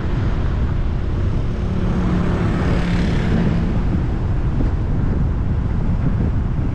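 A car driving along a road: steady low rumble of engine and tyres with wind noise on the microphone. About three seconds in there is a brief swell of noise with a faint hum, as of a vehicle passing.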